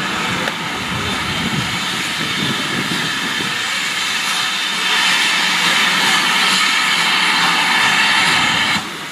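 A steam locomotive, GWR Manor class 4-6-0 No. 7820, letting off steam in a loud, steady hiss. The hiss swells about five seconds in and cuts off sharply near the end.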